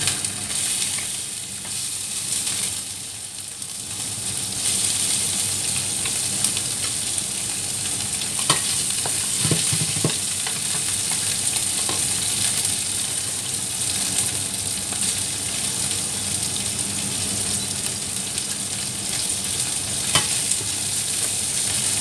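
Small pepper-coated fish sizzling in hot oil in a frying pan as they are added one by one; the sizzle dips briefly, then grows louder a few seconds in as more fish go in. A few sharp clicks sound over it, near the middle and near the end.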